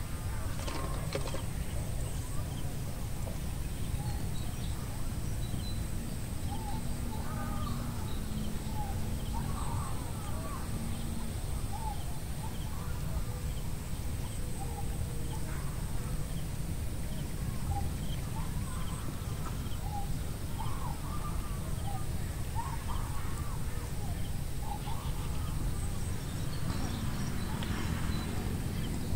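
Rural field ambience: many short bird calls scattered throughout over a steady low rumble.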